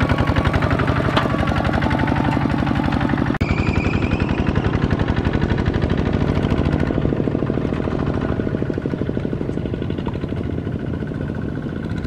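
Two-wheel walking tractor's single-cylinder diesel engine running under load with a fast, even chugging exhaust beat. There is a brief dropout about three seconds in, and the chugging is a little quieter in the second half.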